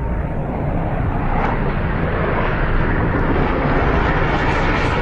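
Aircraft engine noise: a steady rushing noise without a clear pitch that grows brighter and stronger toward the end.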